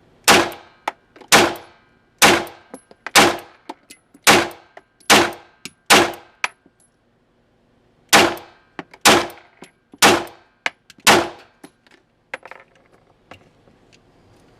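FN 509 Compact Tactical 9mm pistol fired eleven times at about one shot a second: seven shots, a pause of about two seconds, then four more. Fainter clicks follow each shot.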